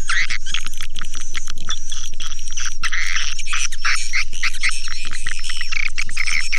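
Swiftlet call sound: a dense, continuous chatter of swiftlet chirps, trills and clicks, used to lure swiftlets to nest. A low steady hum runs beneath it.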